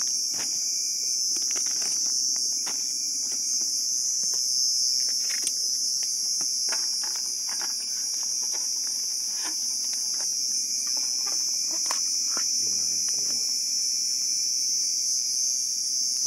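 Dense forest insect chorus at night, a steady high-pitched shrill that is the loudest sound throughout. Over it come scattered light crinkles and clicks of plastic food pouches and a bag being handled.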